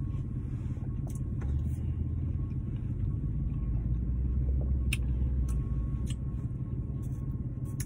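Car engine idling, heard as a steady low rumble inside the cabin, with a few light clicks of a plastic fork against a plastic food container.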